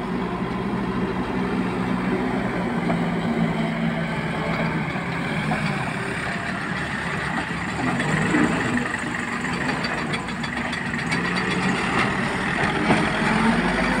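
Case backhoe loader's diesel engine running steadily at working speed as the machine moves loose earth.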